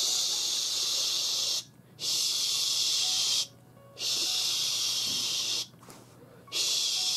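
A person's drawn-out hushing 'shhh' hiss, used to scold a dog, made four times in a row. Each is held about a second and a half with short pauses between. The ending of the scolding sound is stretched out rather than cut off short.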